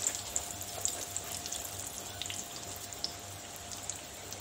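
Squares of folded dough shallow-frying in oil in a pan, a steady sizzle with scattered fine crackles, while more cooking oil is poured into the pan from a plastic bottle.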